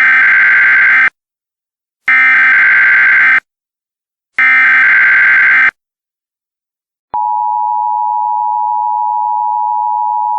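Emergency Alert System header: three harsh digital data bursts, each a little over a second long. About seven seconds in comes the EAS attention signal, a steady two-tone beep that heralds the spoken alert.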